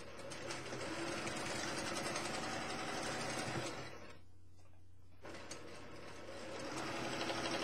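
Sewing machine running at speed in free-motion quilting, stitching through the quilt layers in a rapid steady rhythm. It stops about four seconds in and starts again about a second later.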